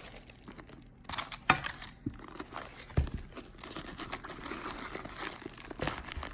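Packing stuffing being pulled out of a new leather handbag, crinkling and rustling, with a few sharper crackles and denser rustling in the second half.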